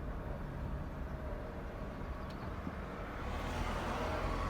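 Car running and tyre noise heard from inside a 2010 Toyota Corolla during a slow U-turn, growing a little louder about three seconds in. There is no clicking: the newly replaced left front drive axle is quiet.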